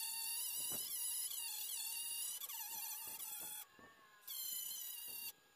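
Angle grinder grinding down a welded seam on a steel car fender, a high whine whose pitch wavers as the disc bears on the metal. It cuts out briefly about three and a half seconds in, runs again, and stops near the end.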